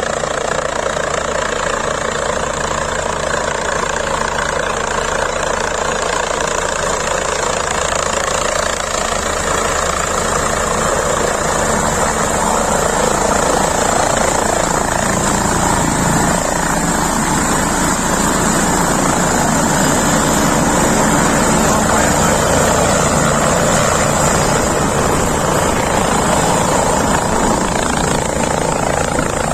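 Helicopter running steadily as it comes in to land: the engine and rotor make a dense, steady din with a few held tones, growing a little louder around the middle.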